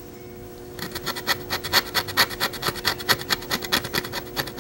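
Fine-tip screwdriver scraping the coating off a circuit board's copper trace down to bare copper, a fast run of short scratching strokes that starts about a second in.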